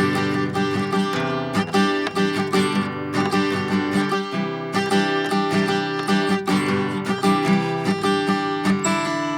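Instrumental music: acoustic guitar being strummed and picked at a steady pace.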